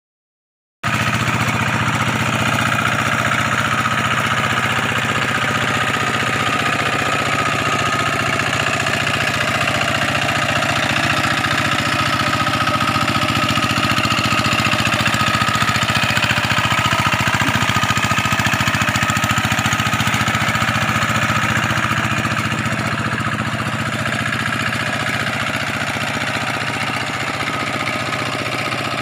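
A two-wheel hand tractor's engine running steadily as it pulls a harrow through the mud of a flooded rice paddy. It starts abruptly about a second in.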